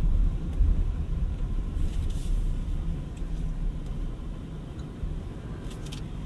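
Low road and tyre rumble heard inside the cabin of a BMW iX3 electric crossover on the move, fading gradually as the car slows, with a few faint clicks near the end.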